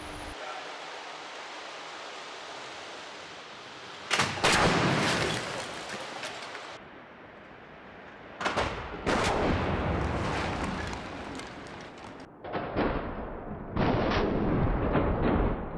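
Volvo XC90 hitting the offset crash barrier at 64 km/h: a sudden loud impact with a couple of seconds of crash noise after it. The crash is heard several times over, each time starting abruptly, as it is replayed from different angles. Before the first hit there is a steady hiss.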